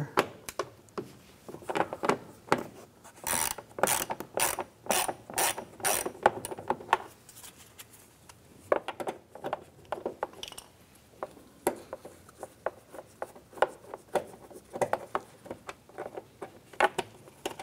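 Hand ratchet with a 7mm deep socket clicking as it backs out a screw: an even run of sharp clicks for a few seconds in the middle, with scattered clicks before and after.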